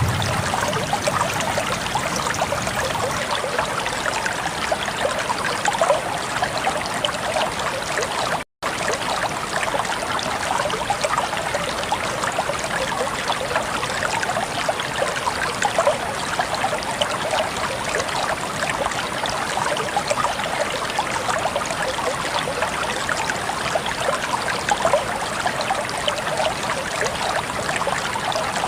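Waterfall: water falling and splashing steadily, broken by a silent gap of a split second about eight and a half seconds in.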